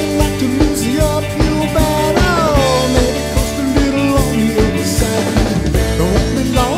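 Rock music with drums keeping a steady beat under sustained instrument notes, and a melody line that glides down in pitch about two seconds in.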